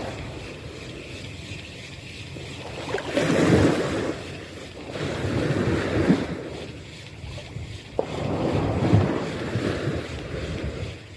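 Wind buffeting the microphone in gusts, about three swells, over the wash of small waves in shallow sea water. A single short click comes about eight seconds in.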